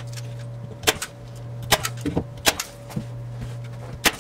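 Staple gun firing staples through plaster mesh into an OSB wall: four sharp snaps, a little under a second apart, with a longer gap before the last. A steady low hum runs underneath.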